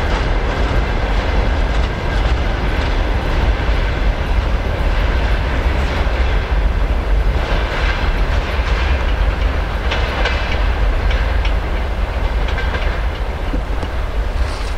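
Freight train of open-top gondola wagons rolling past, the wheels clattering over rail joints over a deep, steady rumble, fading a little near the end as the last wagons pull away.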